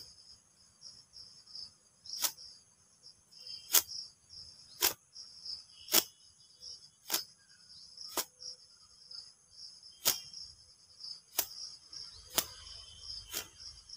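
Sharp smacks of a cotton gamcha towel and long wet hair being slapped together to shake the water out, about ten in a row, roughly one a second. A steady high chirring of insects runs behind.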